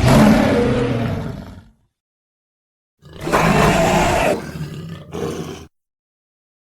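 Two sound-designed dinosaur roars for an invented creature: the first about a second and a half long, fading out; after a pause of dead silence, a second, longer roar with a brief break near its end.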